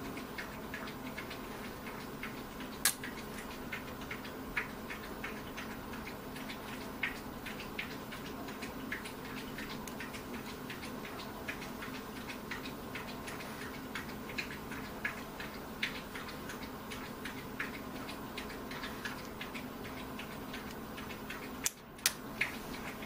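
Light, irregular clicks and taps of small plastic parts being handled and worked at a tabletop, with a sharper click about three seconds in and another near the end, over a steady low hum.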